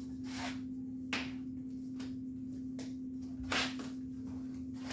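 Soft slaps and swishes of hands and forearms meeting and brushing in a fast hubud partner flow drill, a handful of quick irregular contacts, over a steady low hum.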